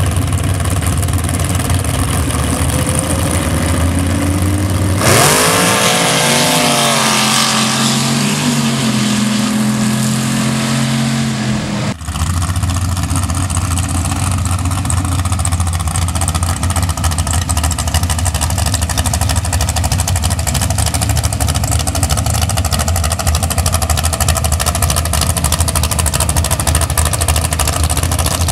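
Open-exhaust race engine of a dirt drag truck idling with a low steady note, then about five seconds in revving hard and pulling away, its pitch rising and then holding high, until it cuts off suddenly about twelve seconds in. After that the engine idles steadily again.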